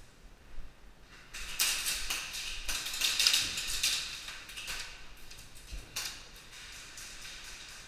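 Airsoft gunfire with BBs striking plywood walls: a fast run of sharp clicks and taps, densest from about a second and a half to four seconds in, then thinning out.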